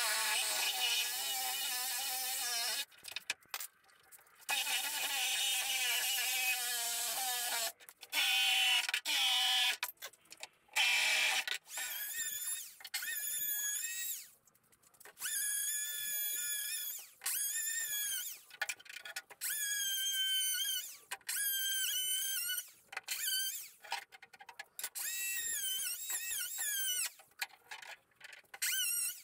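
Cordless Ozito reciprocating saw cutting through pallet timber in about a dozen short runs of a few seconds each, stopping briefly between them, the motor's pitch wavering as it works.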